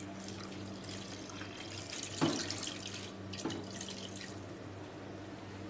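Water poured in a steady stream from a jug into a clay cooking pot, splashing into the prawns and liquid in it, with a couple of light knocks partway through.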